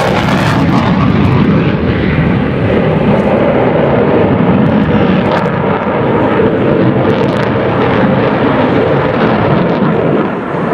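Loud, steady jet roar of an F/A-18 Super Hornet's twin General Electric F414 turbofans at high power during its air-show demonstration pass, easing slightly near the end.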